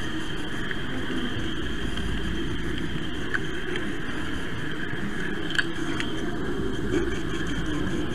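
Model train running along the track, heard from a camera riding on it: a steady rumble and hum of the motor and wheels on the rails, with a few sharp clicks in the second half.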